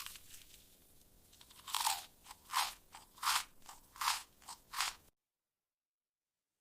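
Crisp crunching bites and chewing of raw fruit: a sharp crunch at the start, then about five loud crunches under a second apart, after which the sound cuts off abruptly to dead silence about five seconds in.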